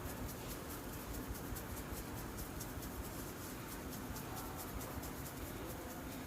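A barber's hands rubbing and kneading an oiled scalp and hair in a quick, even rhythm of soft scratchy strokes, about five a second.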